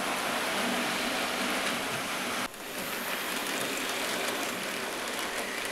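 Hornby OO gauge model train running on the layout's track: a steady rolling, whirring rush of the motor and wheels on the rails, broken by a short drop about two and a half seconds in.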